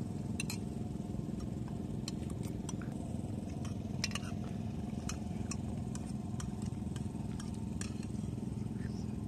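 A steady low engine hum, with a scattering of light clicks of spoons against plates.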